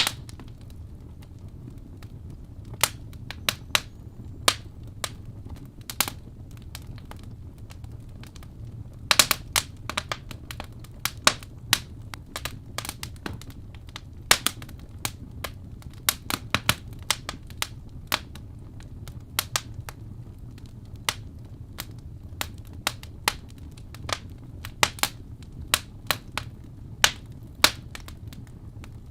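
Wood fire burning in a fireplace: logs crackling and popping in irregular sharp snaps over a low steady rumble of the flames, with a quick flurry of pops about nine seconds in.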